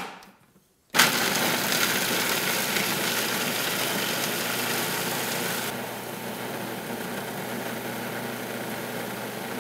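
Food processor switched on about a second in, its motor running steadily as it grinds pecans, shredded coconut and medjool dates into a dough. The high grinding noise eases about halfway through while the motor keeps running.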